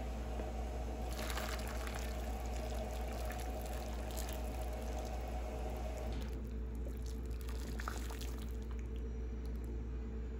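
Boiling water being poured over raw pork chops in a plastic bowl, starting about a second in and stopping near the end, over a steady low hum.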